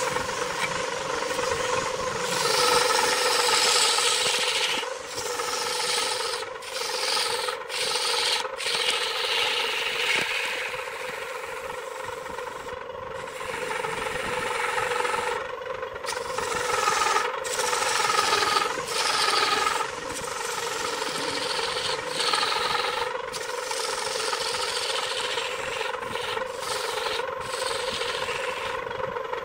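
Wood lathe running with a steady hum while a turning tool cuts and scrapes the spinning wood. The cutting hiss swells and fades as the tool makes repeated passes.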